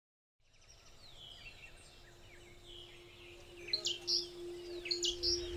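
Birds chirping and calling: many short, falling chirps that fade in after a brief silence and grow louder near the end, over faint steady outdoor ambience.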